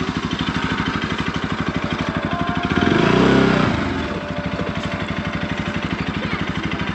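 Motorcycle engine running at low revs with a steady, even pulse, revved up briefly about three seconds in as the bike pulls away onto a dirt track, then settling back to a steady run.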